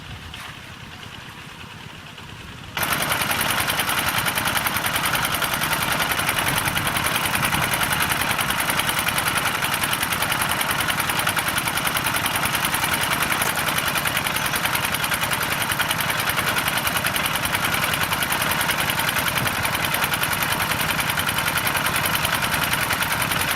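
Small engine driving a water pump, running steadily with a fast, even chugging beat. It comes in abruptly about three seconds in, after a quieter stretch.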